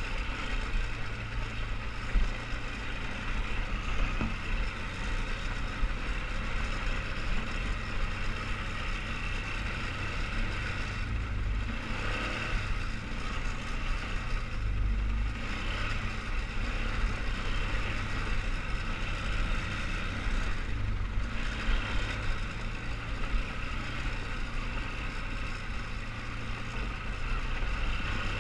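A 2003 Polaris Sportsman 500 HO 6x6 ATV's single-cylinder four-stroke engine running steadily while the machine is ridden along a dirt trail. Its speed changes now and then, with a few brief swells in level.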